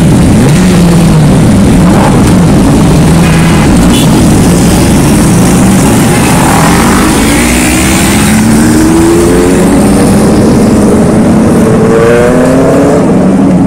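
A group of motorcycle engines running close by, then revving as the bikes pull away, with several engine notes rising one after another in the second half.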